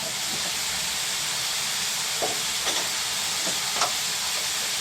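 Food frying in a pan: a steady sizzling hiss, with a few light knocks or scrapes partway through and near the end.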